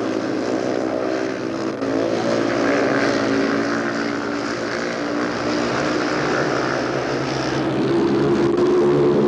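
Speedway racing motorcycle engines running hard at high revs, the pitch shifting as the bikes race. The sound grows louder about eight seconds in.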